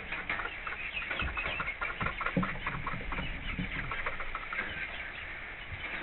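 Chickens clucking over a steady patter of rain on the coop roof: a dense, irregular run of small ticks.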